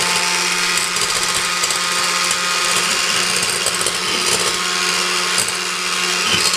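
Electric hand mixer running at high speed, its beaters whipping egg whites into a stiff foam in a stainless steel pot: a steady motor hum under the hiss of the beaters.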